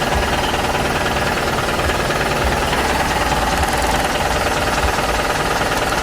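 An engine running steadily with a fast knocking rattle.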